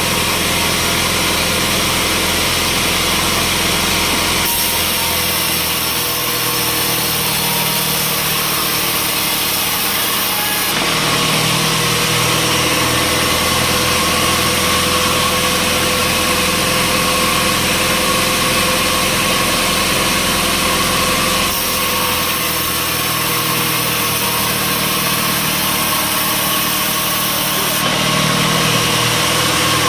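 Sawmill machinery running steadily: an engine-driven saw runs continuously with a steady whine over a broad machine noise.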